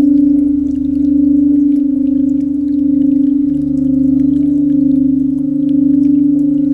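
Singing bowl sounding a sustained, steady ringing tone with a higher overtone, its loudness swelling and easing about once a second.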